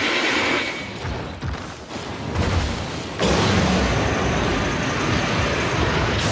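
Giant-monster roar sound effects for a fictional dragon: a loud, rough roar with a deep rumble fades out, a lower rumbling follows, and a second loud roar starts about three seconds in.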